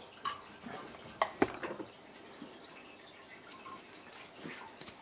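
Cast-iron bench vise being opened and a 3D-printed plastic part lifted out of its jaws: a few sharp clicks and knocks of metal and plastic, the loudest pair about a second and a half in, then a faint knock near the end.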